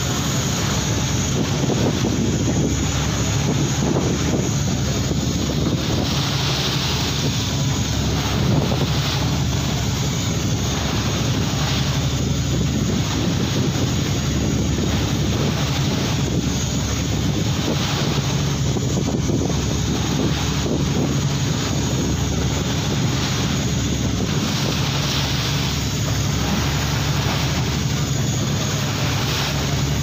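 Fishing boat's engine running at a steady pace, with a constant rushing hiss over it.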